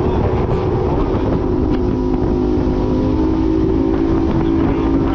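Sport Jet-driven river jet boat running steadily under way: a continuous engine drone over rushing water noise.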